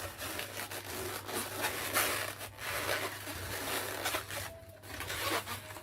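Latex modelling balloons being handled and twisted, rubbing and squeaking against each other in short, irregular scrapes.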